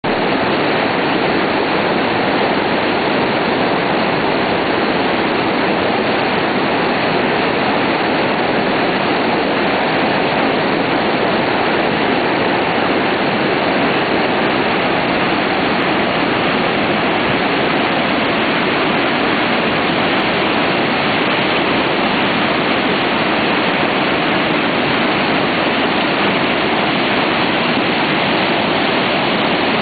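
A river in flood after torrential rain, its muddy water rushing past with a loud, steady noise that does not let up.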